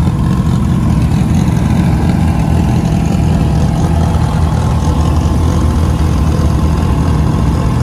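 Turbocharged Acura Integra drag car's engine idling steadily, a loud even low rumble with no revving.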